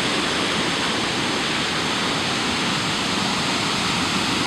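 Steady noise of rushing floodwater pouring through and over the dam, the lake swollen by heavy rain.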